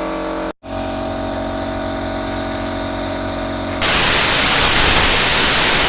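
Messer Griesheim plasma cutting machine running with a steady hum that drops out for a moment near the start. Almost four seconds in, a loud, steady hiss sets in as the plasma torch fires.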